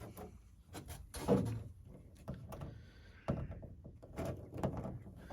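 A few separate knocks and clunks as a 1963 VW Beetle's door is handled. The door bottom is rusted through.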